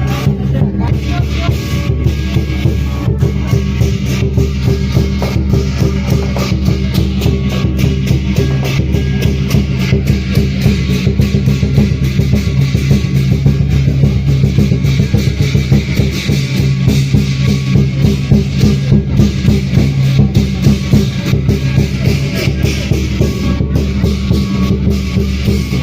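Lion dance percussion: a big drum beaten in a fast, dense, loud rhythm with crashing cymbals.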